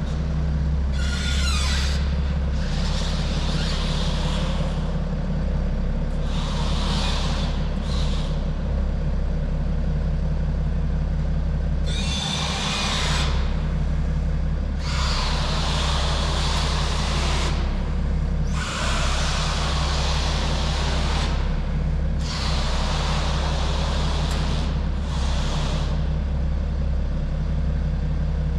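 BMW GT on the move, a steady low engine and road hum with repeated one-to-three-second bursts of harsh grinding noise from underneath, about eight in all. This is the metal-on-metal underbody noise of worn suspension parts, later traced to a failed trailing-arm bushing and torn lower-arm ball joints.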